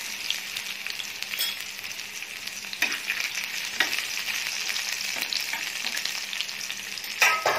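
Chopped onion sizzling in hot oil in a frying pan. A steel spatula scrapes and knocks against the pan a few times as it is stirred, loudest near the end.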